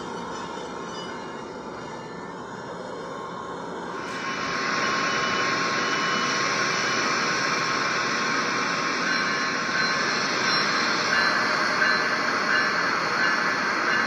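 Train sounds: a steady rumble and hiss that steps up in loudness about four seconds in, with a few faint high steady tones.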